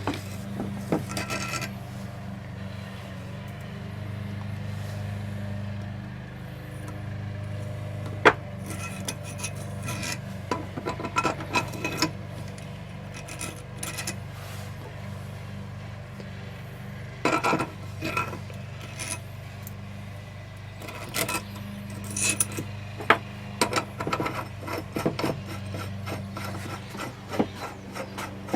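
Hand work on motorcycle parts: metal tools and parts clicking, knocking and rubbing in irregular clusters, with one sharp knock about eight seconds in, over a steady low hum.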